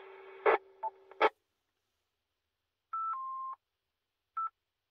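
FM two-metre repeater heard through a Yaesu FTM-400 mobile radio. The other station's transmission ends with a low hum and a few sharp clicks in the first second or so. After a short silence comes the repeater's two-note courtesy beep, stepping down from a higher tone to a lower one, and a single short beep follows near the end.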